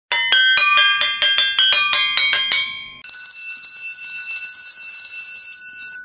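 Handbells ringing: about a dozen strokes at several different pitches over the first three seconds, each note ringing on under the next. Then a steady high ringing holds for about three seconds.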